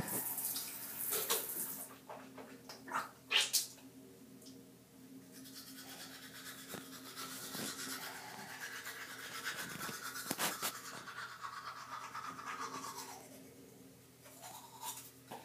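A child brushing her teeth with a toothbrush, steady scrubbing with a few sharp clicks and knocks along the way.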